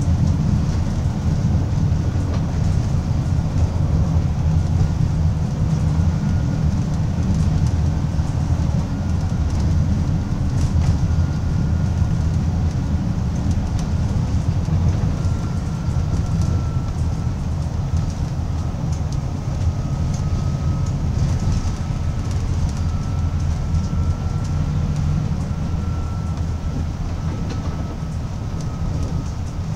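A bus running at speed, heard from inside the cabin: a steady low engine and road rumble, with a faint high whine that drifts slightly in pitch and a few light rattles.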